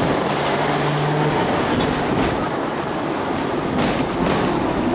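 Hong Kong double-decker electric tram running along the street, heard from on board: steady wheel-on-rail rumble and wind noise. A low motor hum sounds for about the first second, and there are a few light rail clacks later.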